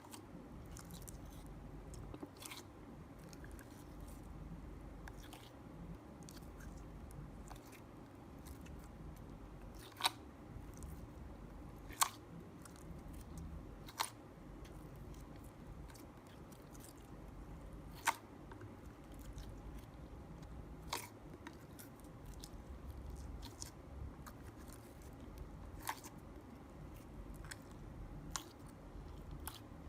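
Slime being mixed and kneaded by hand, with a steady run of small sticky clicks and crackles and a handful of sharper clicks spaced a few seconds apart.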